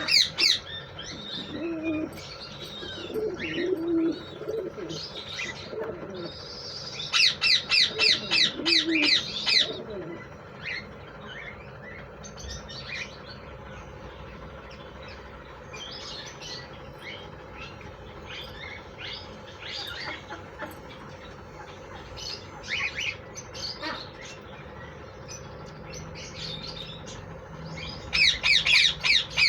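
Green ringneck parakeets calling: a run of rapid, shrill, evenly repeated squawks several times a second from about seven seconds in, another near the end, and scattered single chirps in between.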